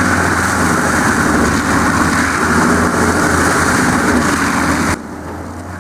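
Heavy engine-driven wood-processing machinery running loudly and steadily, cutting off abruptly about five seconds in to a quieter, steady engine hum.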